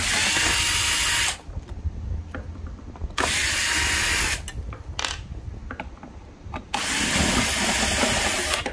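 Cordless drill-driver backing screws out of a thermo pot's metal base plate in three runs of one to two seconds each, the motor's whine steady and then dropping away as the trigger is released. Small clicks of the bit and screws come between the runs.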